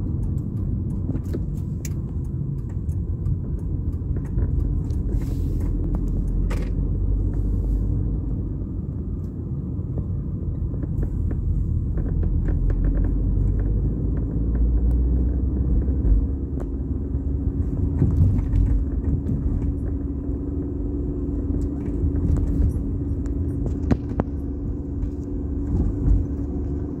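Car in motion heard from inside the cabin: a continuous low rumble of engine and tyres on the road, with frequent small clicks and rattles throughout. A steady low engine note comes in over the second half.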